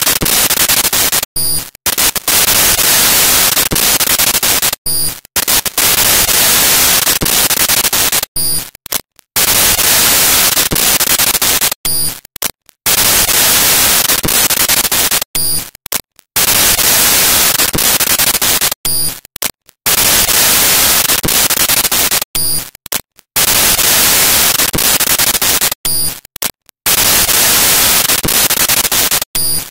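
Loud, steady static hiss that drops out briefly about every three and a half seconds.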